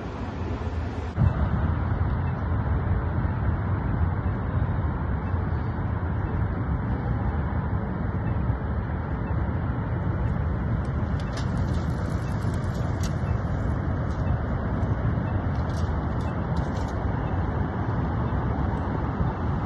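Steady outdoor city noise: wind rumbling on the microphone mixed with passing road traffic. It steps up in loudness about a second in.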